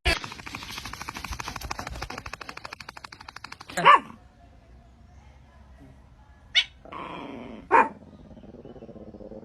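A dog barking: short single barks about four seconds in and twice more near the end, after a few seconds of a fast, even patter.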